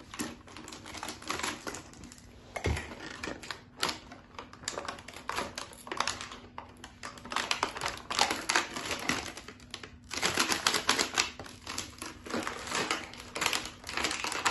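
Clear plastic packaging crinkling and small plastic toy doctor-kit pieces clicking and clattering as they are handled, a dense run of crackles with brief lulls.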